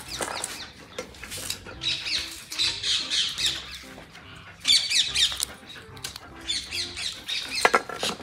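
Background music running as a string of short, evenly spaced notes, with high chirping sounds over it and a sharp click near the end.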